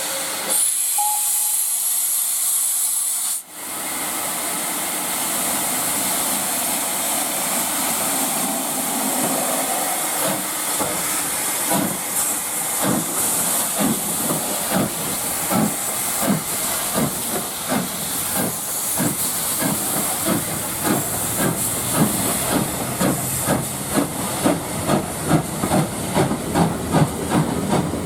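Steam locomotive hissing steam, then setting off: its exhaust beats start slow and quicken as it gathers speed.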